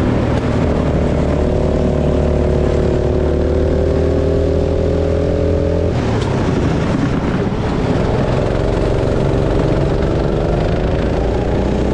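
Go-kart engine running at speed, its note holding and slowly rising, then breaking up about six seconds in as the throttle comes off, and climbing steadily again from about eight seconds in as it accelerates.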